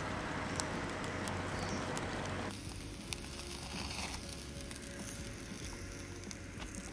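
Sausages sizzling on a charcoal grill, with the charcoal fire crackling and popping under the wire mesh as fat drips onto the coals. About two and a half seconds in, the steady sizzle cuts off abruptly, leaving a quieter fire with scattered crackles.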